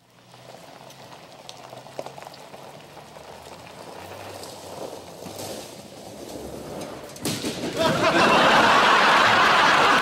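A pickup truck drives off. About seven seconds in, a flat-bottomed boat slides off its bed onto a gravel drive with a sudden loud, rough scraping that continues.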